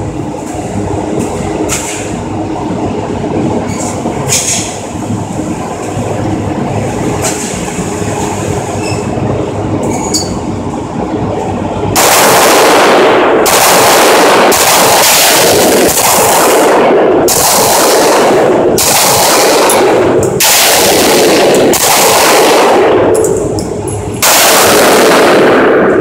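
Glock 17C 9mm compensated pistol being fired at a range: a string of about nine loud shots roughly a second and a half apart, each ringing on for about a second. Before them, for the first half, only faint sharp cracks a few seconds apart over a steady background noise.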